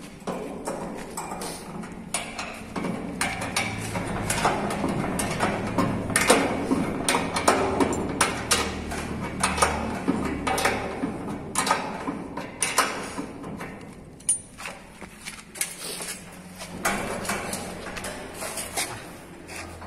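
Steel folding door being worked on by hand: irregular metal clicks, knocks and rattles, busiest in the middle and thinning out near the end.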